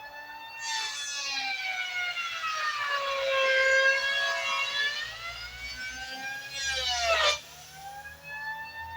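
An electric power tool's motor whines as it cuts into a timber beam. Its pitch sags under the load and recovers, and it dips sharply about seven seconds in before spinning back up.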